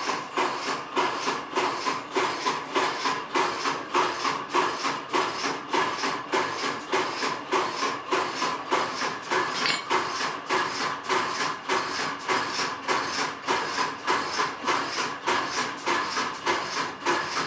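Bolt trimming machine running, its press striking in an even rhythm of about three to four strokes a second over a steady mechanical hum.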